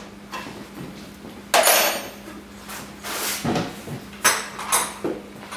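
Steel wrenches clanking against metal hose fittings. There are several sharp metallic clanks with a brief ring: the loudest comes about a second and a half in, and a few more follow in the second half.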